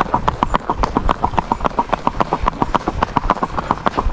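A horse's hooves clip-clopping on asphalt in a rapid, even, steady rhythm: the horse moving in an intermediate paso gait, the gait that builds its stamina.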